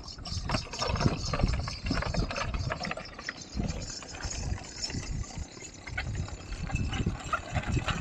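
Donkey cart rolling close by: a low, uneven rumble from the cart's wheels with scattered clicks and rattles from the cart and the donkey's hooves.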